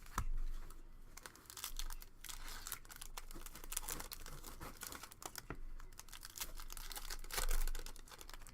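Plastic packaging on a box of hockey trading cards crinkling and tearing as it is opened by hand. The crackles are irregular and get louder about three-quarters of the way through.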